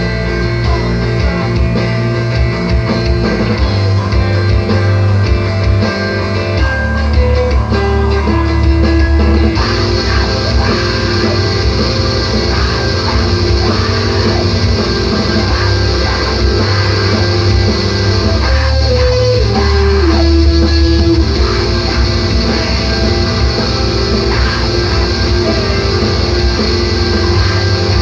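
Loud screamo/emoviolence band recording: distorted electric guitars, bass and drums playing steadily, with a short stepwise descending guitar line heard twice, about twelve seconds apart.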